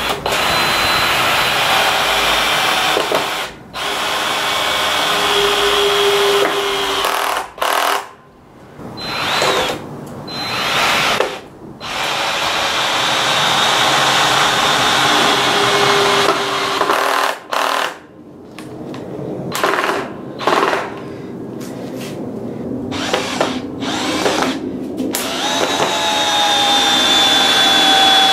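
20V cordless drills, a Stanley and near the end a Porter-Cable, boring a row of small holes into a wooden beam: the motor whines under load in a series of drilling runs separated by short stops between holes.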